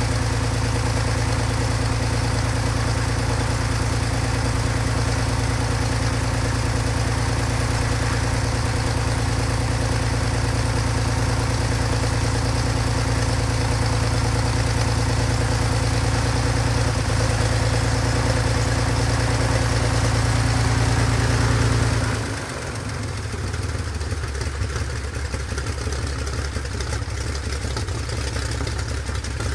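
Extra 300's Lycoming AEIO-540 six-cylinder, 300 hp aero engine running steadily during a ground test run. About 22 seconds in, its speed drops suddenly and it carries on running lower and quieter.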